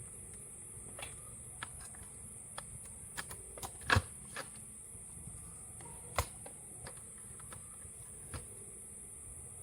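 Scattered small clicks and taps of hands working on a laptop's plastic case and internal parts during reassembly, with a louder knock about four seconds in and another about six seconds in, over a steady faint hiss.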